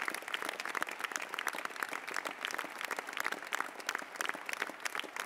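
A large congress audience applauding, dense steady clapping from many hands in a big hall.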